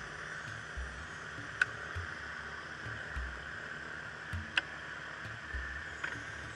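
Wind buffeting an open-cockpit microphone: a steady hiss with irregular low thumps. Two sharp clicks come about a second and a half in and again about four and a half seconds in.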